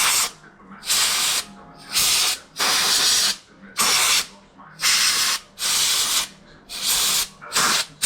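Sandblaster gun fired in short blasts of hissing air and grit, about eight bursts roughly a second apart, each cut off sharply.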